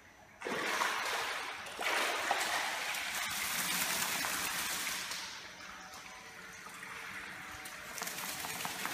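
Water streaming and splashing off a dog as it climbs out of a swimming pool, then the spray of the dog shaking its wet coat. The sound starts suddenly, eases after about five seconds, and swells again near the end.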